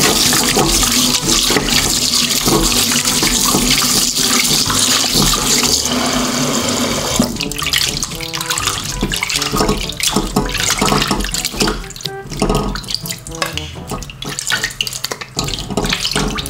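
Tap water running into a stainless steel bowl of cut pork belly in a sink, then stopping about seven seconds in. After that, hands slosh and rub the pork pieces in the water, with splashes and trickles as pieces are lifted out.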